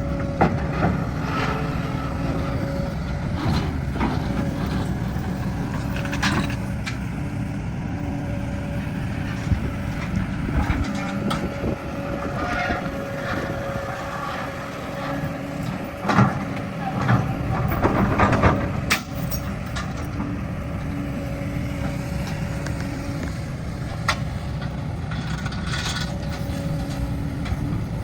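Heavy diesel machinery engine running steadily, with scattered metallic clanks and knocks that bunch together about two-thirds of the way through.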